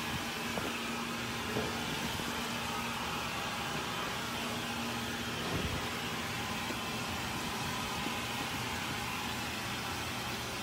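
Laundry being loaded into a top-loading washing machine: a few soft knocks and rustles as dark clothes are pulled from a plastic basket and dropped into the drum. Under them runs a steady hiss with a low hum that stops about halfway through.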